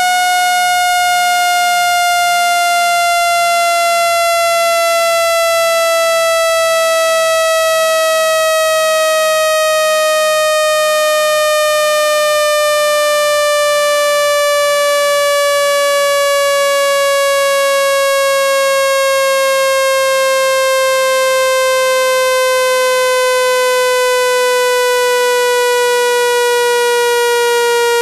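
Synthetic speaker-cleaning tone: a loud, steady buzz rich in overtones, its pitch sliding slowly and smoothly downward. It is played at full volume to vibrate a phone speaker so it pushes out trapped water and dust.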